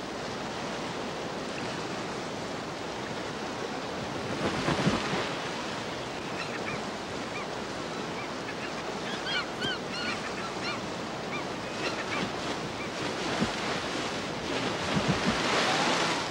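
Rushing river rapids, with loud splashing of bears lunging through the white water about four seconds in and again near the end. Between these, a run of repeated high, arching gull calls.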